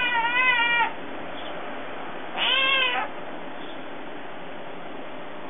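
Tabby kitten meowing to demand food: a long meow that ends just under a second in, then a shorter meow about two and a half seconds in.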